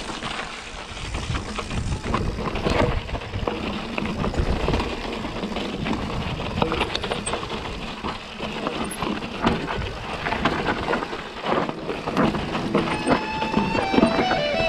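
Santa Cruz mountain bike riding down a rocky dirt trail: tyres crunching over loose stones and the bike rattling and clattering over the bumps. Electric guitar music comes in near the end.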